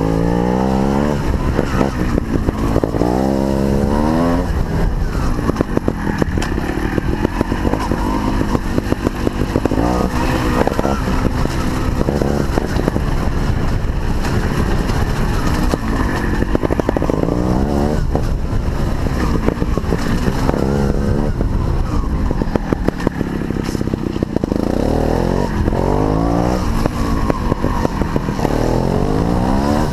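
Sherco 290 two-stroke single-cylinder trials motorcycle engine being ridden, revving up and down over and over, with runs of rising revs near the start and again near the end. It is heard from a helmet-mounted camera, with a constant rumble underneath.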